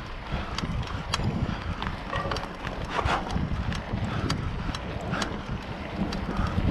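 Mountain bike riding along a dirt trail: wind buffets the microphone in a low rumble over the hiss of the tyres, with scattered clicks and rattles from the bike.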